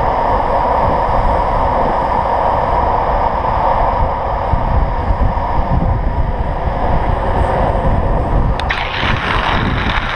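Wind buffeting a helmet-mounted camera's microphone while a downhill longboard runs at speed on asphalt, its wheels rolling with a steady rumble. Near the end a harsher scraping hiss joins in as the bend approaches.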